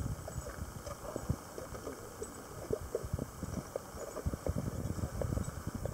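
Irregular scuffing footsteps and small knocks on a concrete and gravel shore, several a second, over a low wind rumble on the microphone.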